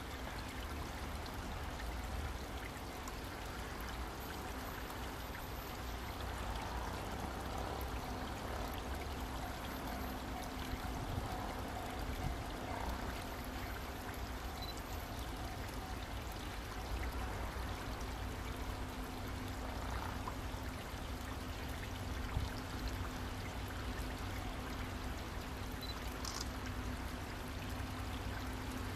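Steady outdoor background noise: an even rushing hiss over a low rumble, with a few faint short chirps.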